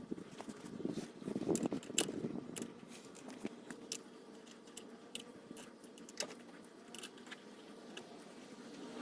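Irregular metallic clicks and clinks of a socket wrench working the 14 mm bolts that hold the wheel hub bearing, busiest in the first couple of seconds.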